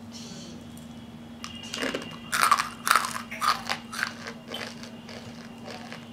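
A crispy deep-fried pumpkin-flower pakora in rice-flour and lentil batter being broken apart by hand. A quick run of crackling crunches starts about two seconds in and is loudest at first, the sign of a well-crisped fritter.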